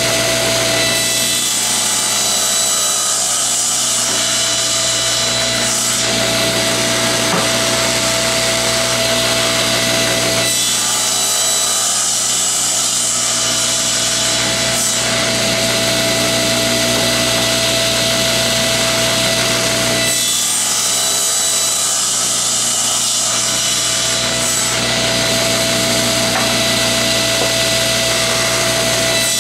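Table saw running steadily while its blade makes repeated shoulder crosscuts in maple. The saw's tone changes every few seconds as the blade goes into and comes out of the wood.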